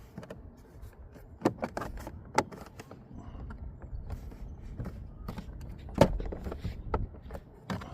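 Plastic interior door trim pieces being pressed and snapped into place: a series of irregular clicks and knocks, the loudest about a second and a half, two and a half and six seconds in.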